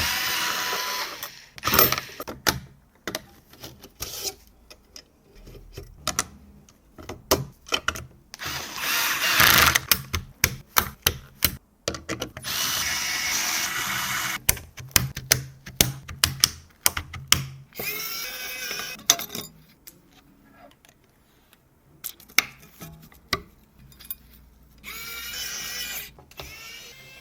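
A small power screwdriver whirring in several short bursts, with sharp clicks and knocks in between, typical of screws being driven and parts being handled during assembly.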